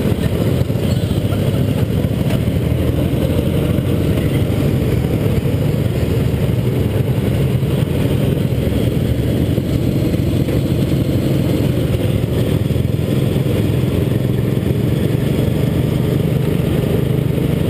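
Racing lawn tractor engine running steadily at a constant speed, heard up close from the rider's seat.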